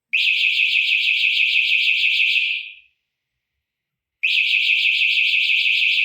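Kuang Te GT-110A crane overhoist alarm horn sounding in two long, loud, high-pitched warbling blasts, the second starting about four seconds in. This is the warning it gives when the hoisted hook rises to within 75–100 cm of the top, to stop the operator overhoisting.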